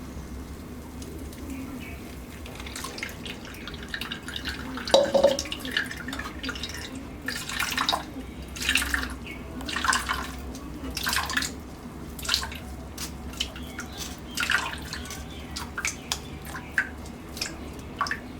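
Freshly blended amla juice being strained: liquid pouring and dripping through a strainer, with a string of short, irregular scraping strokes from a few seconds in until near the end.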